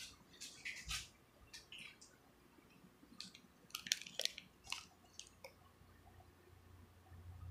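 Faint crinkling and rustling, with short clicks, as a plastic mesh bag of key limes is picked up and handled, busiest about three to five seconds in.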